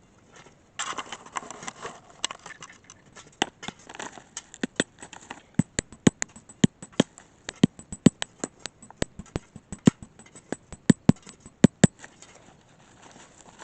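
A long, irregular series of sharp knocks and clicks, a few each second, with a brief rustling scrape about a second in.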